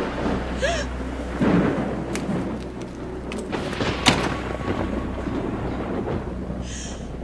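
Thunderstorm: steady rain and rumbling, with a sharp thunder crack about four seconds in.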